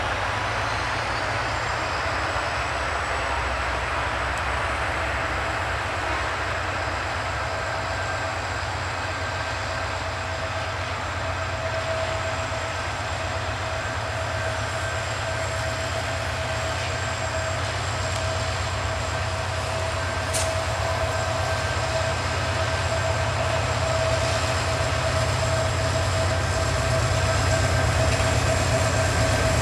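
Bangladesh Railway diesel-electric locomotive running as it hauls a passenger train toward the listener, a steady low rumble with a constant whine over it. It grows louder toward the end as the train draws near.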